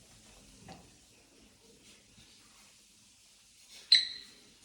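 Quiet background, then about four seconds in a single sharp clink that rings briefly, as of something hard being knocked inside the open fridge freezer.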